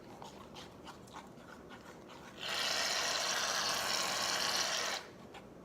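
Aerosol can of shaving cream dispensing foam in one steady hiss lasting about two and a half seconds, after a few faint clicks.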